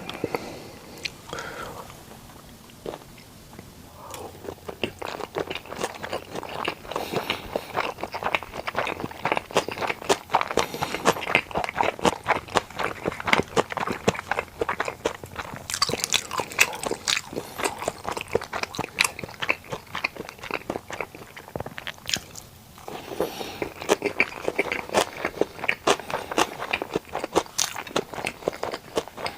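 A person chewing sushi close to the microphone: a dense, continuous run of mouth clicks and bites that eases off briefly near the start and again about three-quarters of the way through.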